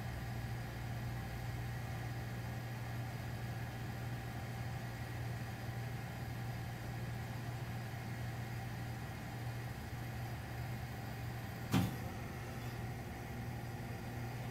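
Steady low hum with background hiss, and a single sharp click about 12 seconds in.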